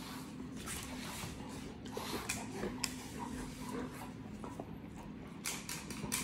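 Slicker brush rasping through a German Shepherd's shedding coat, with fur rustling and scattered light clicks as the dogs shift about, over a faint steady hum.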